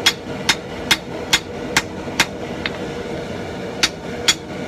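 Hand hammer striking a red-hot steel axe bit on an anvil, about two sharp blows a second with a pause of about a second past the middle before the blows resume, over a steady faint hum. The bit is being scarfed (thinned and tapered) ready for forge welding into the axe body.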